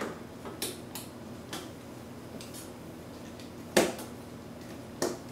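Light metallic clicks and clinks of a hand-held Phillips screwdriver and a small screw being worked into a motherboard standoff, the screw failing to thread. A few light clicks come in the first second and a half, a sharper click nearly four seconds in and another about a second later.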